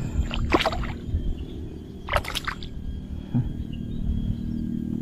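Water splashing as a hooked wild Nile tilapia thrashes at the surface beside the angler's hand: two short bursts of splashing, about half a second in and around two seconds in, over a steady low hum.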